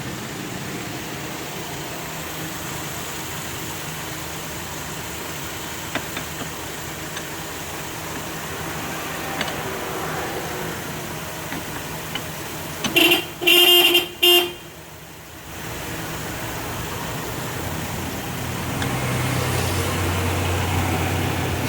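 A car horn sounds three short honks a little past halfway, over a steady background of vehicle and workshop noise. Near the end, a low engine hum comes in.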